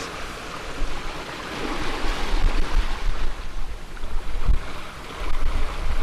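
Choppy sea water rushing and splashing past a moving sailing yacht, swelling a little about two seconds in, with strong wind buffeting the microphone.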